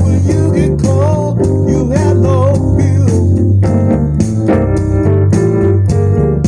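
Music: a song with a singing voice over instruments and a steady bass, the voice heard mostly in the first half.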